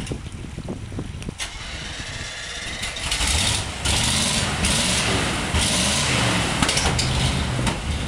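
Rock-crawling Chevrolet K5 Blazer's engine running, picking up and working harder about three seconds in, with bursts of hiss over it.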